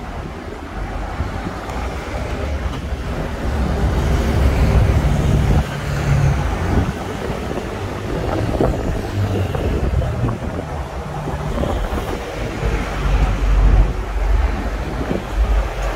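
Hong Kong double-decker electric tram running along its tracks, heard from the upper deck: a steady low rumble from the car and its wheels on the rails, growing louder about four seconds in, with road traffic around it.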